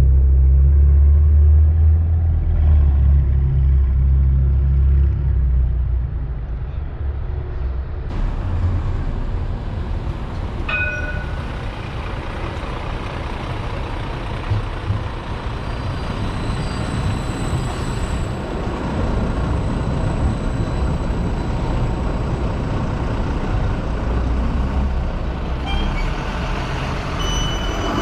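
A large vehicle running with a heavy low rumble that eases after about six seconds into a steadier, wider noise. There is a short electronic beep about eleven seconds in, and steady high tones near the end.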